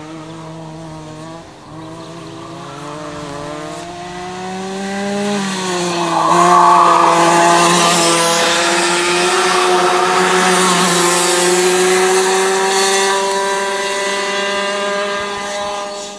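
Racing go-kart engine passing close by. It grows much louder about five seconds in, its pitch climbing steadily as it accelerates, and fades again near the end.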